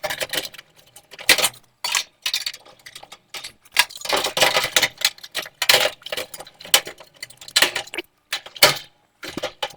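Sheet-metal cover of a dryer's heating element housing being handled and fitted into place: irregular metallic clicks, clinks and rattles.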